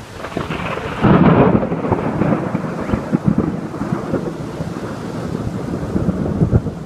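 Thunder rumbling in a heavy downpour: it swells to its loudest about a second in, then rolls on with crackle over the hiss of rain.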